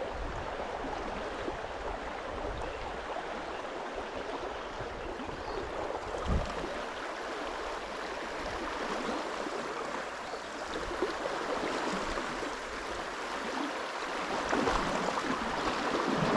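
Steady rushing of the Bóbr river's current over shallow riffles, with a brief low thump about six seconds in.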